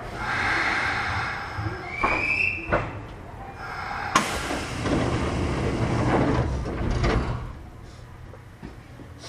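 Sliding doors of a Kintetsu 1000 series electric train closing for departure, shutting with a sharp slam about four seconds in after a short high tone. A few seconds of rushing noise follow before it quietens.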